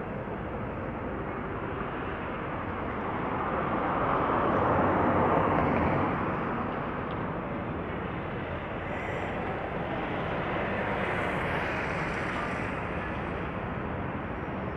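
Steady rumble of road traffic and engines, swelling about four to six seconds in as a vehicle passes close.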